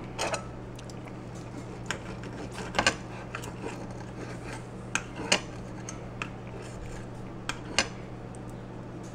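A steak knife and fork sawing through grilled skirt steak, clicking and scraping against a ceramic plate in scattered clicks about a second apart; the steak knife cuts poorly.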